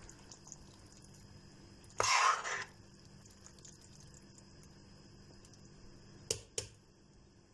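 Spoon stirring chunky eggplant, pepper and tomato sauce in a large aluminium pot: a short wet scraping noise about two seconds in, then two light clicks of the spoon against the pot near the end.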